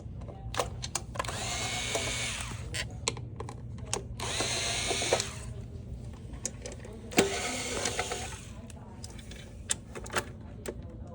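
Cordless drill/driver running in three short bursts, backing screws out of a cover, with small clicks and knocks in between.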